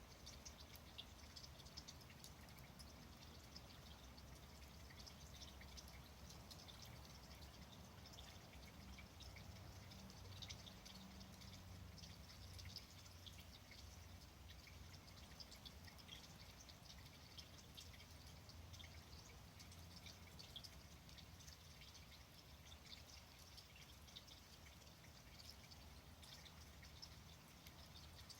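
Wood campfire burning quietly, giving off faint, irregular small crackles and pops.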